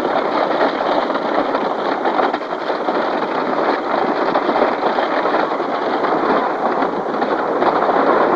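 Wooden roller coaster train rumbling and clattering along its track, heard from on board the moving car as a steady, loud rush.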